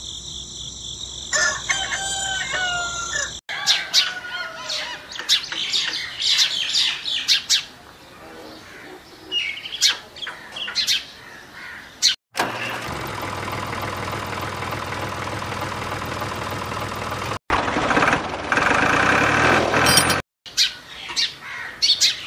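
A rooster crowing near the start, then small birds chirping. Midway there is a steady rushing noise for about five seconds, and the sound cuts off abruptly between sections.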